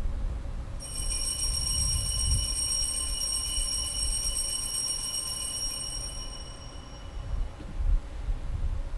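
Altar bell struck once at the elevation of the consecrated host, ringing with several high, clear tones that fade away slowly over about six seconds.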